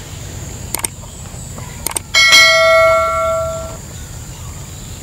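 Subscribe-button animation sound effect: a few quick clicks, then a single bright bell ding about two seconds in that rings on for about a second and a half.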